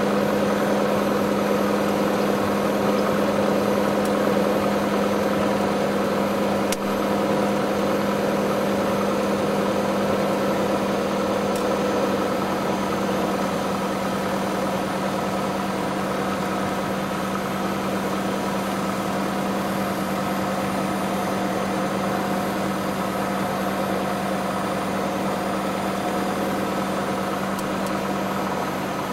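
Aircraft engine running steadily at taxi power, heard from inside the aircraft: a constant droning tone that eases slightly about halfway through.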